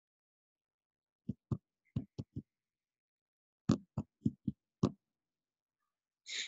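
Ten short, sharp taps in two quick runs of five, about a second and a half apart.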